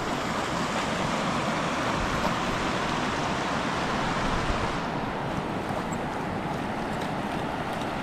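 Steady rush of shallow river water flowing across a rocky crossing, with wind rumbling on the microphone.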